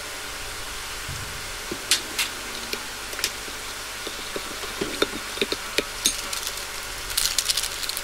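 Metal ladle clinking and scraping against a stainless steel mixing bowl while a thick seasoning sauce is stirred, in scattered sharp knocks with a quick flurry of clinks near the end.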